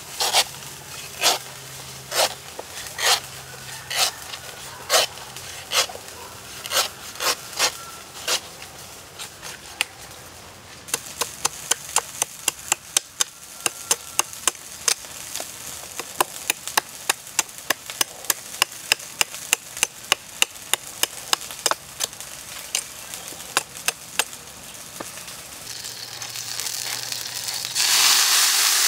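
Large knife chopping into the husk of a young green coconut resting on a wooden stump: sharp strikes about one a second, then quicker, lighter chops two or three a second. Near the end a loud steady hiss sets in.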